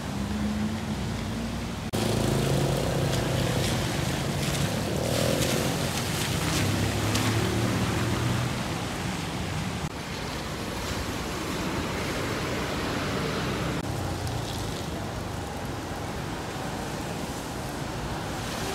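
Street traffic on a rain-soaked road: a steady hiss of tyres on wet tarmac, with a car engine running low under it through the first half. The sound changes abruptly a couple of times.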